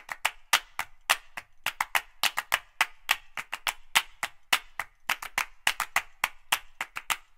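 Percussive background music: a quick, uneven beat of hand claps, several a second, with no tune.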